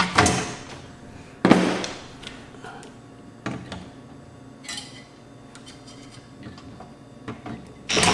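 Scattered knocks and clunks of parts from a disassembled AV receiver being handled and set down on a work surface, the loudest about one and a half seconds in, with smaller taps and clicks after it.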